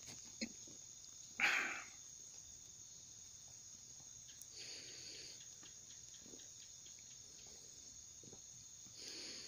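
A steady, high-pitched chorus of insects such as crickets, with a short, louder burst of noise about a second and a half in.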